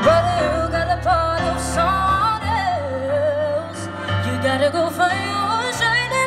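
Live band music through PA speakers: women singing a melody over keyboard accompaniment and a low bass line.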